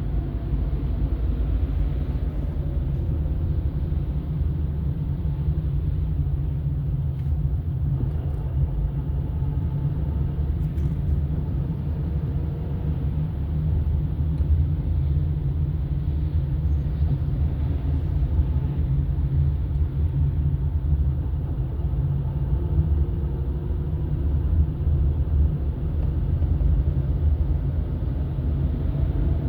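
Steady low rumble of a car on the move: engine and road noise, with a faint engine tone drifting up and down in pitch.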